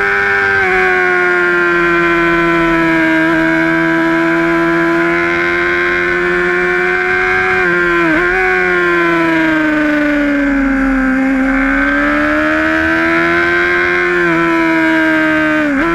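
Honda sportbike engine running at high revs on track, heard from onboard: a strong, steady note whose pitch sags and rises with the throttle through the corners. Two quick dips in pitch, about halfway and at the very end, are typical of gear changes.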